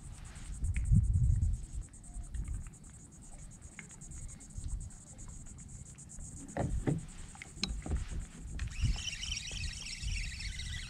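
Knocks and rubbing from gear being handled on a plastic fishing kayak, over a low wind rumble on the microphone and a steady high-pitched buzz. About nine seconds in, a rapid chattering sound joins.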